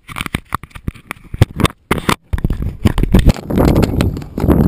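A rapid run of sharp clicks and knocks from handling close to the microphone. From about halfway through comes a rough rushing of wind buffeting the microphone.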